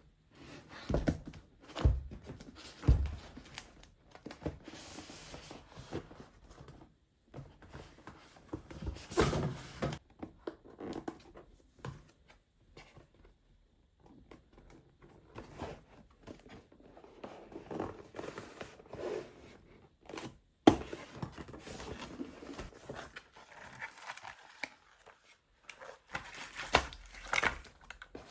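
Packaging being handled and torn open by hand, with tearing and crinkling of paper or plastic. There are three heavy thumps in the first few seconds and a single sharp click about two-thirds of the way through.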